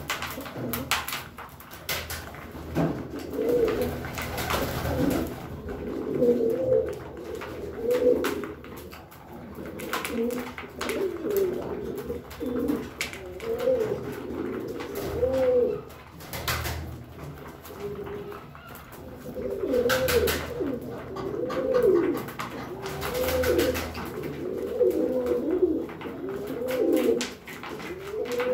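Domestic pigeons cooing over and over, several birds overlapping, with scattered short knocks.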